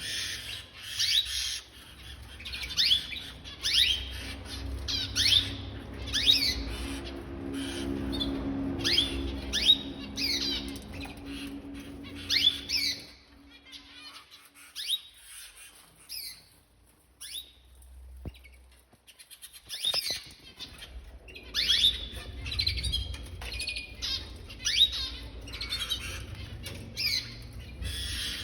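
Caged pet birds squawking and calling over and over, short calls sweeping down in pitch about once a second, falling quieter for several seconds in the middle before picking up again.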